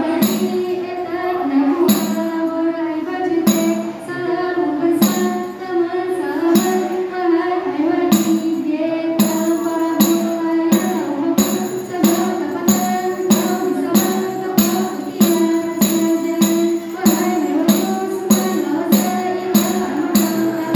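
Saman dance song: voices singing in unison over sharp hand claps, one about every second and a half at first, speeding up about halfway through to more than two a second.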